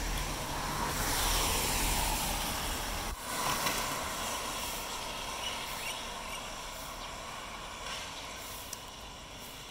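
Strong wind blowing in gusts with a steady hiss and low rumble on the microphone, strongest about a second in and easing slightly toward the end.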